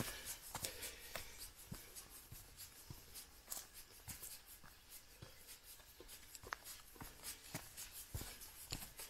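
Faint footsteps of a hiker walking uphill on a leaf-littered dirt trail, one soft step about every half second.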